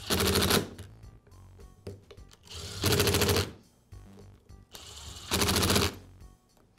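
Impact driver hammering in three short bursts, each a fast rattle of blows lasting under a second, as it runs screws home into a polisher's gearbox cover.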